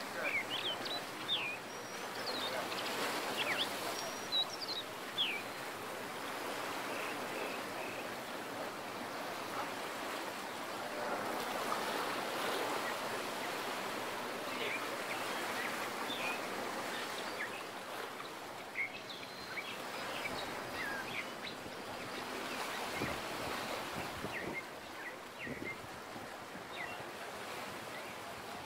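Sea water washing against rocks, a steady rushing hiss that swells a little around twelve seconds in. Scattered short, high chirps sound over it, most in the first few seconds and again later on.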